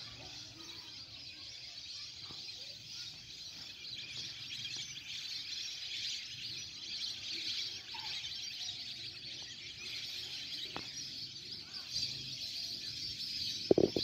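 A steady chorus of high chirping calls from a large flock of migratory ducks circling overhead, with a brief knock just before the end.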